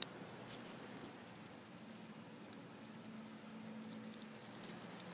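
Heavy rain pattering faintly, with scattered sharp ticks of drops.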